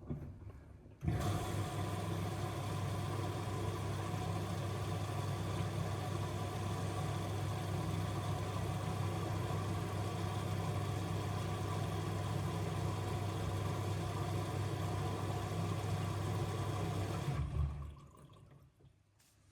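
Miele W1 front-loading washing machine drawing in water: a steady rush of water with a low hum, starting abruptly about a second in and cutting off sharply near the end.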